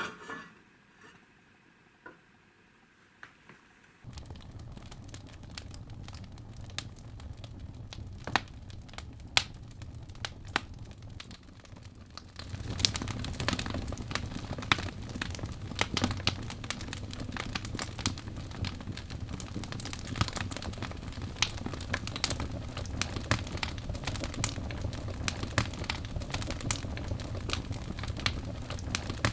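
Wood fire in a fireplace crackling and popping with irregular sharp snaps over a steady low rumble. It starts after a few seconds of quiet and gets louder about twelve seconds in.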